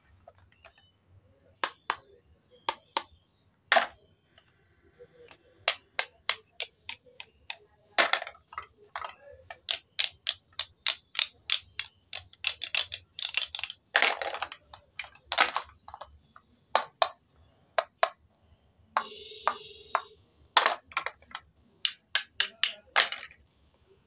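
Plastic toy knife clicking and tapping against plastic toy fruit and a plastic cutting board: scattered sharp clicks, then fast runs of clicks, with a few longer scraping crackles as pieces are cut and pulled apart.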